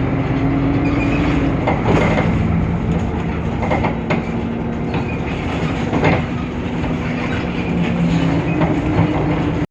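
Temsa Avenue LF city bus with a DAF PR 228 engine and ZF Ecolife gearbox on the move: a steady engine drone whose pitch rises slightly near the end, with sharp knocks or rattles about two seconds apart.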